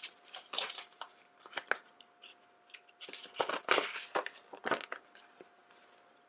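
Paper flyer and plastic blind-bag packaging rustling and crinkling as they are handled, in a string of short irregular rustles, loudest around three and a half to four seconds in.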